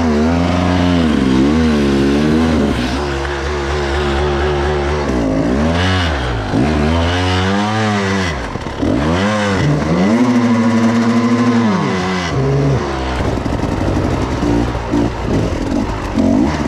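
Dirt bike engine revving up and down over and over, its pitch swooping and dipping every second or so. About thirteen seconds in, the sound turns rougher and more irregular.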